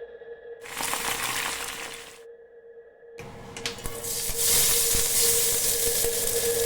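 A hiss from street-food noodle cooking, in two stretches with a short quiet break about two seconds in. A steady tone runs underneath.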